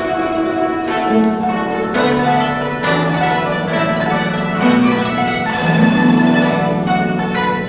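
Guzheng (Chinese zither) being played solo: a busy run of plucked notes over ringing low strings, with several sharp, bright attacks along the way.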